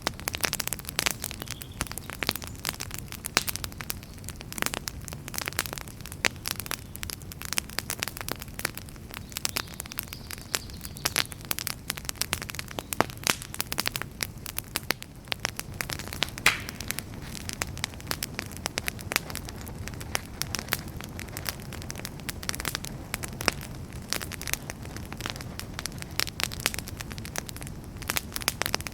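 Outdoor wood campfire burning, crackling with dense, irregular pops over a low steady rumble of flame. About halfway through, a brief hiss whistles out of the burning wood.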